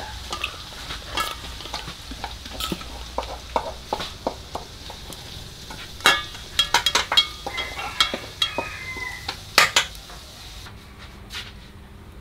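Chopsticks and a metal spoon clinking and scraping against a large stainless-steel basin while tossing a wet banana-blossom and shrimp salad, an irregular run of sharp clinks that is loudest in quick flurries around the middle. The clinking stops shortly before the end.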